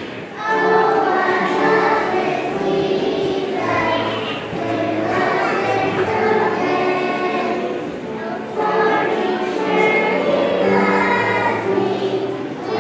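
A large choir of young children singing together in unison, in phrases of a few seconds with brief breaks between them.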